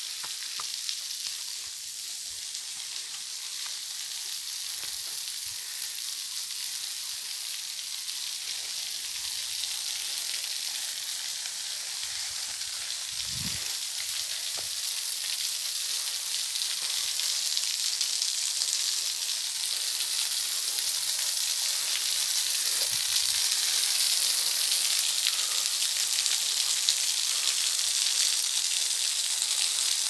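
Thin streams and spray of a small waterfall falling and pattering onto a mossy rock face: a steady high hiss that grows louder through the second half.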